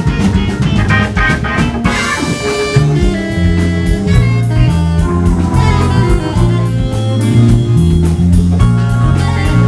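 Live jazz-blues band: a Hammond A-100 organ playing over bass and drum kit, with busy drumming in the first couple of seconds.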